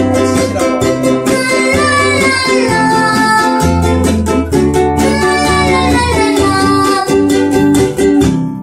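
Ukulele and a Crafter acoustic guitar strummed together in a steady rhythm, with a voice singing a melody over them.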